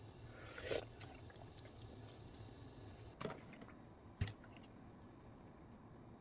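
Quiet kitchen handling sounds over low room tone: a brief rustle about half a second in, then a soft knock around three seconds in and a sharp click a second later.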